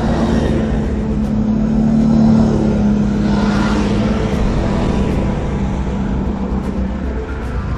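Quad bike (ATV) engine running under way, a steady drone that swells briefly about two seconds in.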